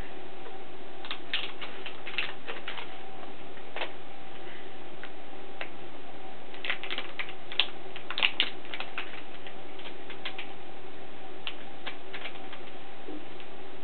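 Scattered small plastic-and-metal clicks and taps of RAM modules being pressed into the slots and latches of a Mac Pro memory riser card, bunched about a second in and again from about seven to nine seconds. A faint steady hum runs underneath.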